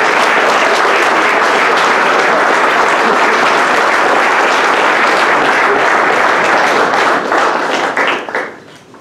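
A roomful of people applauding steadily, the applause dying away about seven seconds in with a few last scattered claps.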